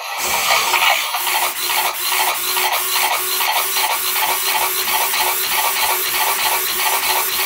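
Servo motors of two Robosen K1 humanoid robots whirring and grinding as the robots throw repeated punches, a steady whine pulsing in an even rhythm of about four beats a second.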